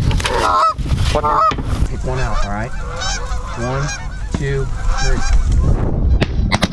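A flock of Canada geese honking and clucking in flight, many short calls overlapping one another.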